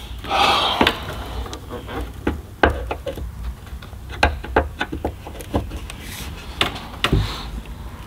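About a dozen sharp clicks and knocks at irregular intervals: hand tools and metal hardware being handled during work on a truck's door hinge.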